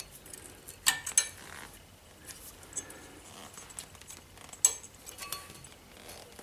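Sharp metallic clicks and clinks of spring-steel brake pad retaining clips being pulled out of and pressed into the brake caliper carrier: two snaps about a second in and a louder one just past halfway, with lighter ticks between.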